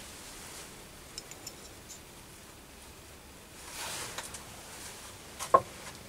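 Faint handling noise of small brass parts in the hands, with a few light clicks and a soft rustle, then one sharp metallic clink about five and a half seconds in as a part is set down.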